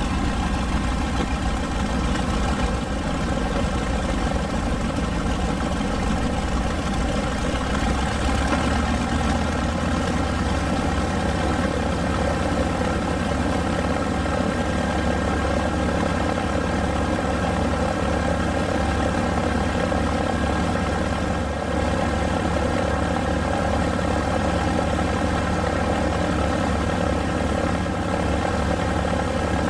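Twin Wright R-2600 radial engines of a North American B-25 Mitchell bomber running steadily as it taxis, an even, unbroken drone.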